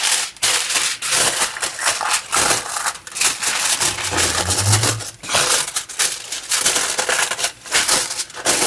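Aluminium foil crinkling and crumpling in a dense crackle as it is spread and pressed down over a roasting pan.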